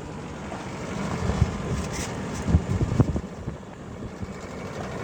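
1987 Kelvinator window air conditioner running, its compressor and fan giving a steady hum. A few short low thumps come through the hum in the middle.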